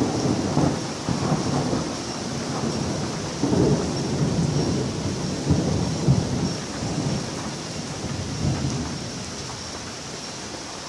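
A clap of thunder breaks suddenly and rolls on in uneven rumbling surges for most of the time, fading near the end, over the steady hiss of heavy rain.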